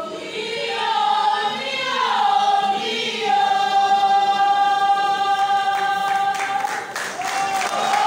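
Choir singing, holding long, steady notes, with one note sustained for several seconds in the middle.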